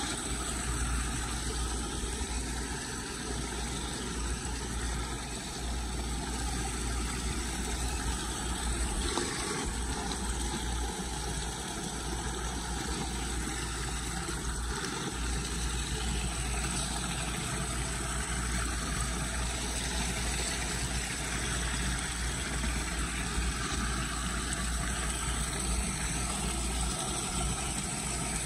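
Muddy floodwater draining through a cleared storm-drain grate, a steady rushing with a deep rumble underneath.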